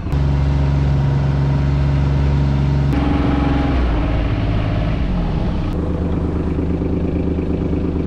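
Engine of a side-by-side UTV running steadily while it drives along the sand, with the rush of the ride behind it. Its pitch jumps abruptly a couple of times as the speed changes.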